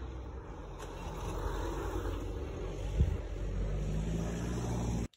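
Outdoor street noise with traffic: a steady low rumble, one sharp thud about three seconds in, and a low steady hum joining near the end, all cutting off suddenly.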